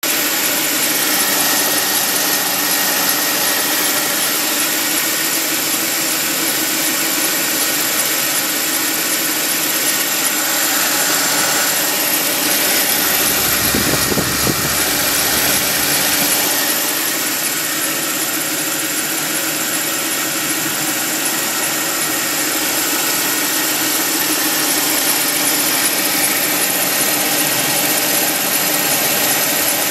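Mercedes-Benz R350's V6 engine running steadily with the unwanted engine noise its owner is recording. A brief low rumble swells and fades about halfway through.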